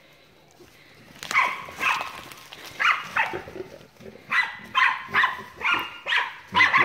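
Tracking dog barking at a wounded hog it has found: about ten sharp barks in a row, starting about a second in and coming roughly every half second.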